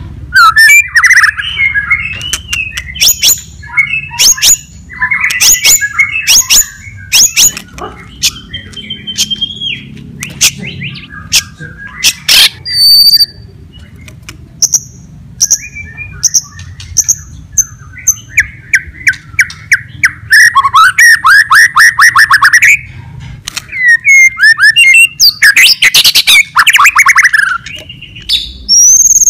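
White-rumped shama (murai batu) in full song: a long, varied run of sharp clicks, high whistled notes and rapid trills. The loudest, densest phrases come near the start and again near the end.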